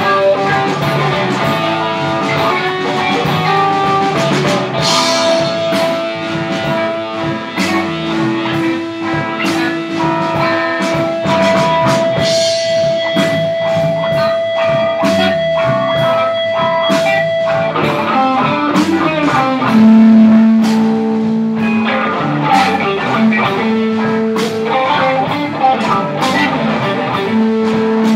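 Live blues band playing an instrumental passage: guitar over a drum kit, with a long held note for much of the passage and another held lower note near the end.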